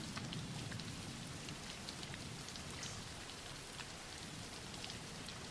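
Soft, steady rain falling, with scattered faint drop ticks.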